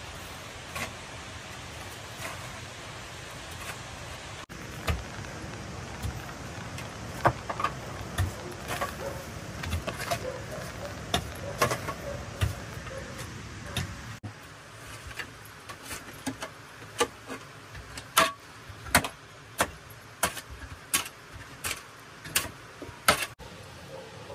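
Pickaxe and mattock blades striking packed earth and stones in irregular chops and sharp clicks, over a steady background hiss.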